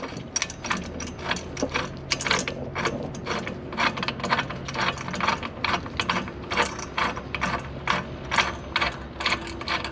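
Steel extraction bolt with a washer being turned by hand through a bushing-puller adapter, with short metallic clicks at about three a second as it is threaded in.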